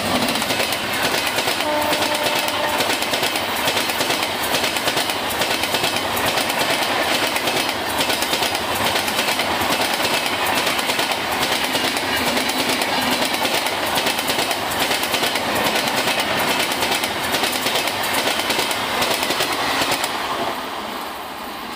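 Indian Railways express train, hauled by a WAP-7 electric locomotive, passing close at high speed without stopping: a loud, steady rush of coach wheels clattering over the rails, fading about twenty seconds in as the last coaches go by. A short horn note sounds about two seconds in.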